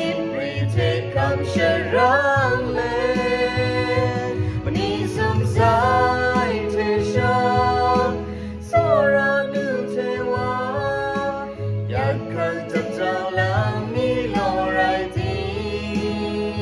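A man and a woman singing a song together in Jinghpaw (Kachin), with a little vibrato on held notes, over a backing track carrying a steady bass line.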